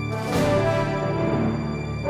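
Background music with held chords and a brief cymbal-like swell about half a second in.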